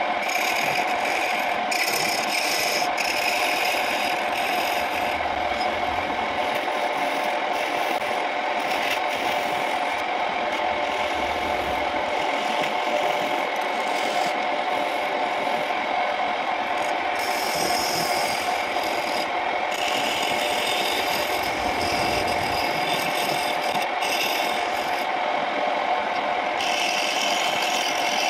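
Homemade wood lathe running with a steady motor whine while a hand-held turning chisel cuts into the spinning wooden lid. The tool scrapes and rasps continuously against the wood, peeling off shavings.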